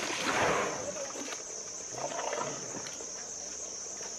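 Asian elephant feeding, its trunk rustling and crunching through a pile of stalks and leaves in two noisy spells, one at the start and another about two seconds in, over a steady high-pitched drone.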